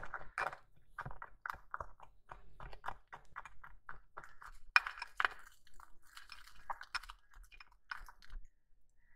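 Plastic spoon stirring flour and shampoo together in a small glass bowl: a run of quick scraping, clicking strokes against the glass and through the thick, sticky mix, about three or four a second. The loudest strokes come around the middle, and they stop shortly before the end.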